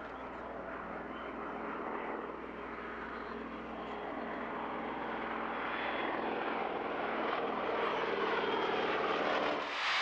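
Piston engines of two propeller-driven WWII fighter planes flying past, a steady drone growing louder as they close in. Just before the end it breaks off into a louder, even jet hiss.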